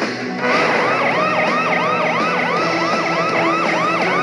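Cartoon emergency-vehicle siren wailing in a fast, repeating up-and-down yelp, about three rises and falls a second, starting about half a second in.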